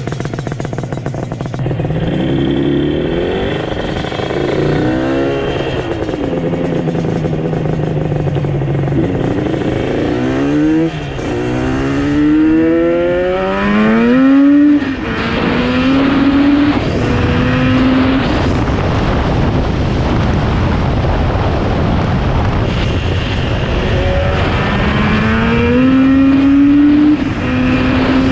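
Yamaha RD350's two-stroke parallel-twin engine, freshly fitted with HVC Cycle CNC cylinder heads, revving under load. Its pitch climbs in several long pulls with steadier stretches between, as when accelerating through the gears.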